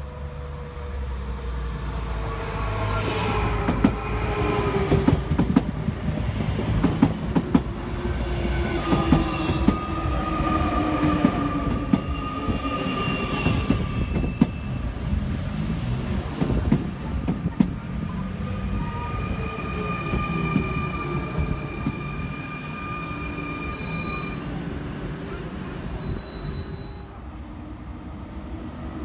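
Double-deck RER C electric multiple unit running past along the platform. A low whine falls in pitch, wheels clack sharply over the rail joints, and high steady squeals come and go.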